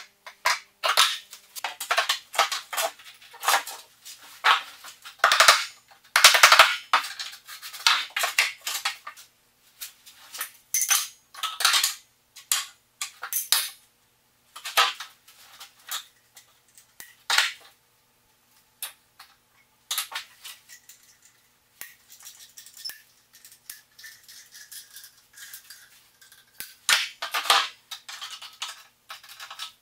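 Hand tools and pieces of wood being handled while fitting skirting board: irregular sharp clicks, taps and clatter, with a quieter spell about two-thirds of the way through.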